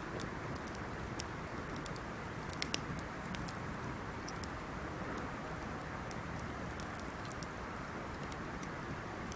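Wood bonfire crackling, with irregular sharp pops and ticks over a steady low rush; a louder cluster of pops comes a little under three seconds in.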